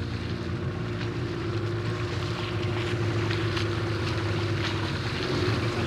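A fishing boat's outboard motor running steadily under way, with wind buffeting the microphone.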